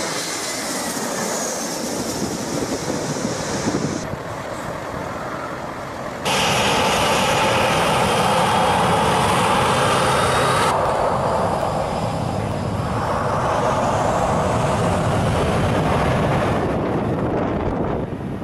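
Jet airliner engines at close range, in short clips that cut abruptly into one another: an airliner passing low on approach with a falling whine, then a Boeing 737's engines running up to takeoff thrust with a rising whine over the rush of jet blast.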